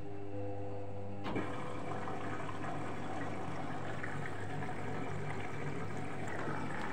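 Arçelik 3320 SA washing machine turning its drum early in a wash, just after filling. A steady motor hum stops with a click about a second in, then water sloshes in the drum.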